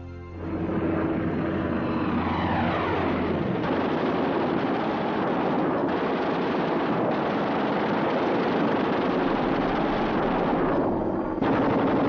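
Propeller fighter planes' piston engines running loud and steady, with a falling whine about two seconds in.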